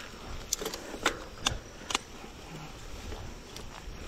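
Mountain bike rolling over a bumpy grass-and-dirt track: irregular sharp rattling clicks from the bike over a steady noise of tyres on the ground.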